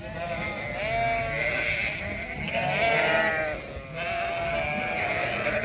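A flock of Zwartbles sheep bleating, many wavering calls overlapping without a break. These are ewes and lambs calling to each other on weaning day, with the lambs in the field and the ewes behind a fence.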